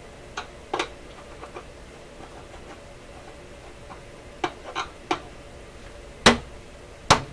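Sharp clicks and knocks at irregular intervals, the loudest about six seconds in, from hands and a tool working a vintage DuMont 401A oscilloscope at its input and cabinet, over a faint steady hum.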